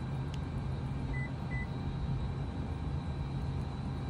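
Two short high beeps from a parked Toyota SUV a little over a second in, typical of the car being unlocked, as its interior lights come on. A steady low hum runs underneath.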